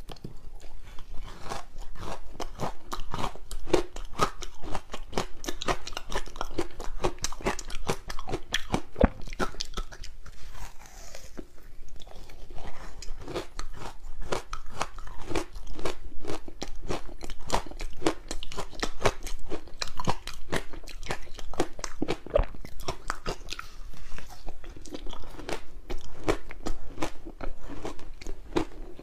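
Soft green barley ice balls being bitten and chewed, close to a clip-on microphone: a dense, irregular run of small wet crunches and crackles, many each second, as the soft ice breaks between the teeth.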